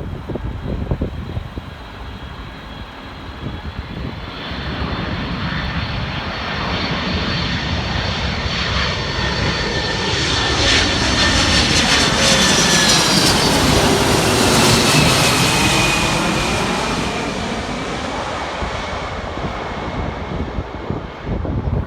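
Arriving airliner flying low overhead on approach: engine rumble and whine swell to a peak about two-thirds of the way through, then fade, the high whine falling in pitch as the plane passes.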